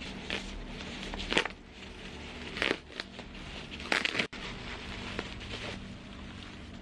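Packaging crinkling and rustling in several short bursts as a parcel is unwrapped.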